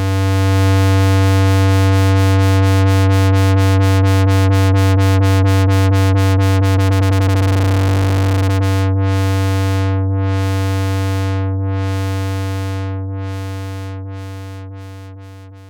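Moog Werkstatt-01 analog synthesizer holding one low note, its filter cutoff modulated by the LFO so the tone brightens and darkens in a regular pulse. The pulsing speeds up to a fast flutter about halfway through, then slows into wide, slow sweeps, and the note fades out near the end.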